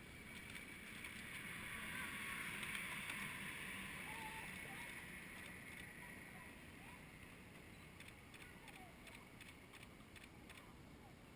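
Faint river ambience: a soft wash of noise that swells over the first few seconds and slowly fades, with a few faint short calls.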